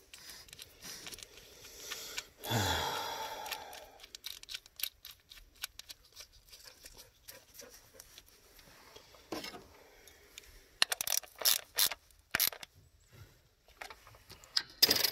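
Light clicks and plastic handling noises of a coil-on-plug ignition coil being seated in its plug well and its wiring connector pushed on, with a cluster of sharp clicks about two thirds of the way in and another near the end. About two and a half seconds in, a man lets out a short falling sigh.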